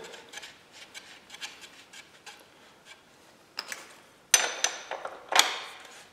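Metal hand tools clinking: a wrench picked up and fitted to a dirt bike's rear axle nut, with faint small clicks at first, then a run of louder, irregular metallic clanks and rattles from about three and a half seconds in.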